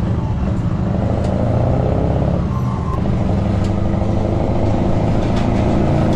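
Truck's diesel engine running under load as the truck pulls away, heard from inside the cab, with a brief dip in the engine note about two and a half seconds in.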